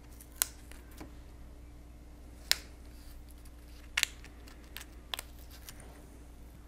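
A few short, sharp clicks and taps, including a quick double click about four seconds in, from tweezers and small styrene parts being handled on a tabletop.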